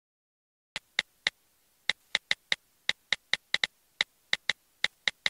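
Smartphone on-screen keyboard click sounds as a message is typed: about seventeen short ticks at an uneven typing pace, starting just under a second in.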